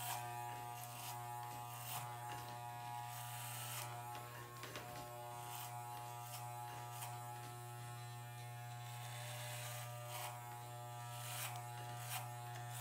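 Wahl electric hair clippers buzzing steadily as they are pushed up through short hair on the side of the head, with irregular light crackles as the blades cut.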